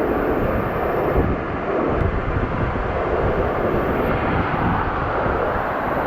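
Waterfall's falling water rushing steadily into the pool, a dense continuous roar with no breaks.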